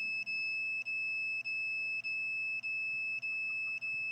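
Electronic radiation detector's alarm: a steady high-pitched beep broken by short gaps a little under twice a second. It is set off by a cell phone held close by while it downloads data.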